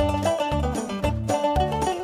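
Upbeat folk music on plucked string instruments playing a quick melody, with a bass note on each beat about twice a second.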